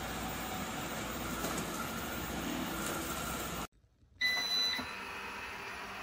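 eufy robot vacuum cleaner running with a steady whir. About two-thirds in the sound drops out briefly, then a short high electronic beep sounds and the vacuum's whir carries on.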